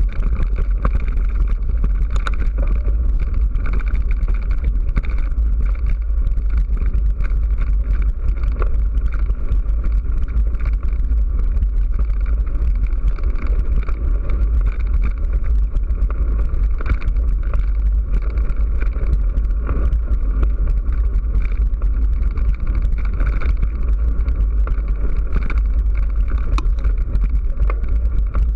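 Steady heavy rumble and rattle of a camera moving along a rough dirt track, with wind buffeting the microphone.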